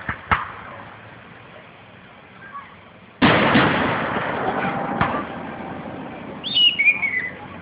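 Aerial fireworks going off: a sharp bang just after the start, a much louder boom about three seconds in that dies away slowly, and another sharp bang about two seconds later.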